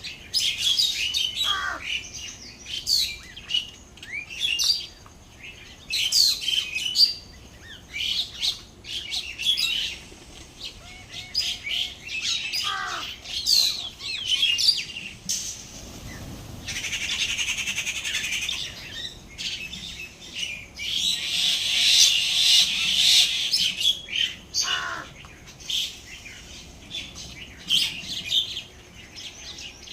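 Birds chirping in quick, overlapping calls, thickest into a dense chatter for a few seconds just past the middle and again about two-thirds of the way through. Three times a lower call slides down in pitch.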